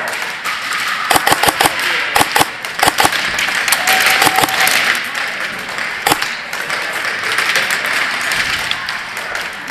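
Airsoft gunfire and BB hits: sharp clicks and pops in short irregular bursts, the strongest a single crack about six seconds in, over a steady background hiss.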